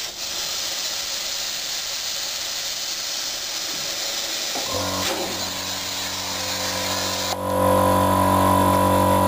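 Compressed air hissing through the air brake pipework of a Westinghouse brake cylinder under test, then, about five seconds in, a steady machine hum starts, growing louder about two seconds later.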